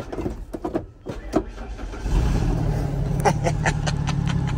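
Ford F-150 pickup being started with the column shift lever jiggled: a few irregular clicks and clunks, then the engine catches about two seconds in and settles into a steady idle. The shifter had to be worked for it to start, which the owner puts down to a misaligned shift column or the neutral safety switch.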